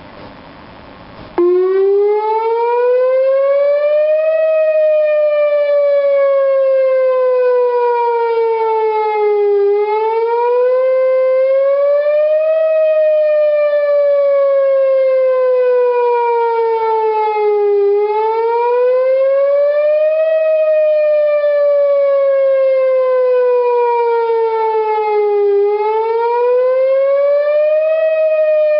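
Whelen WPS-2904 electronic outdoor warning siren sounding a wail during a test: it cuts in suddenly about a second and a half in, then rises and falls slowly in pitch, one cycle about every eight seconds.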